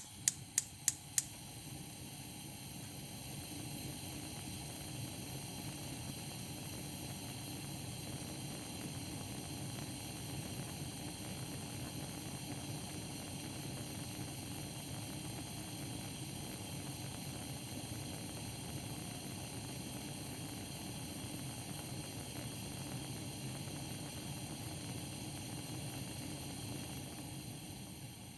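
Gas stove burner being lit: the igniter clicks a few times in about the first second, then the burning flame runs with a steady, even hiss.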